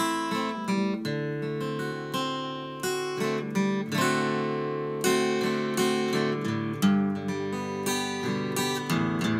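Solo acoustic guitar playing a slow instrumental intro, chords picked and strummed with fresh notes about once a second, each left to ring.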